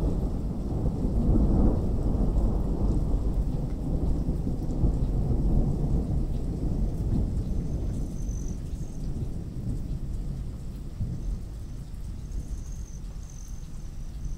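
A long roll of thunder rumbling low, loudest a second or two in and slowly dying away, with rain.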